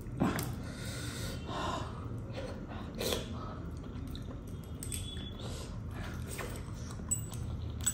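Close-miked mouth noises of a man eating, sucking masala gravy off a surmai (kingfish) backbone, with a few louder moments about a quarter second in and again around three seconds.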